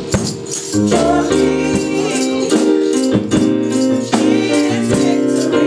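Live gospel praise-and-worship music: a band plays sustained chords over a steady percussive beat, with singing.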